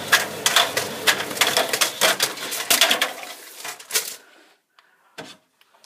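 Tumble dryer drum turning with small loose items inside, a plastic dosing cup and a box of Tic Tacs among them, making quick, irregular clattering knocks. The clatter stops suddenly about four seconds in, and a single click follows about a second later.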